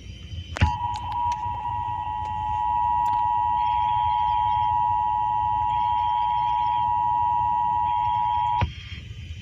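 Emergency Alert System attention signal, the 853 Hz and 960 Hz tones sounded together, heard over a car radio. It starts with a click about half a second in, holds steady for about eight seconds and cuts off sharply near the end, over a low steady rumble of road noise.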